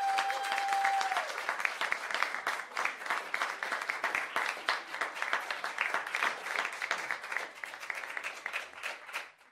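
Studio audience applause: dense clapping that slowly thins and fades, then stops just before the end. A single held note sounds over the first second.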